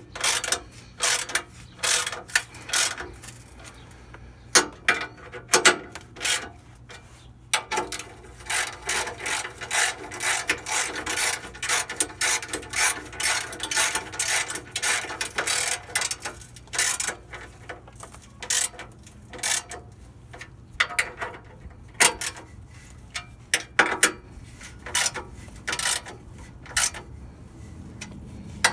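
Hand ratchet wrench clicking in irregular runs of quick strokes, with short pauses between runs.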